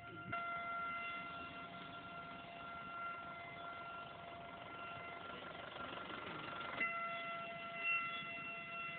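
A steady, single-pitched alarm siren sounds continuously across the docks, holding one note without wailing. A rushing noise swells partway through and cuts off suddenly about seven seconds in.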